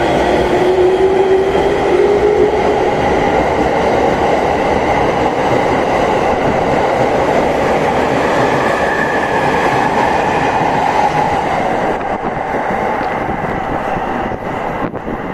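JR East 209 series electric train pulling out and accelerating past: the traction motors' whine rises in pitch over the first two or three seconds, over the steady rumble of the cars rolling by. The sound eases after about twelve seconds.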